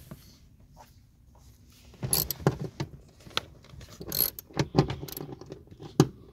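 Metal hand tools clinking and rattling as a socket and ratchet are handled. Irregular sharp clicks and clatter start about two seconds in, with a single loud click near the end.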